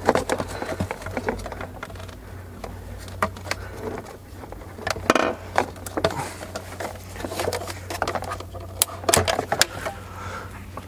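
Plastic clicks, knocks and scrapes of the Mercedes W206's factory footwell subwoofer being worked loose and pulled out of its three-point mount by hand, over a low steady hum.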